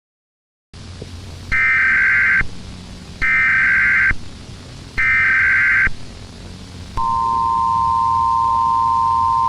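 Emergency Alert System tones: three one-second bursts of SAME header data, followed about seven seconds in by the steady two-tone EAS attention signal. A faint hiss and low hum run underneath.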